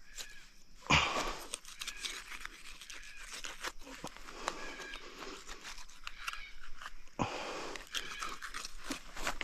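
Knife work on a deer carcass: crunching, scraping cutting sounds with scattered small clicks, and two sharp knocks, one about a second in and another later.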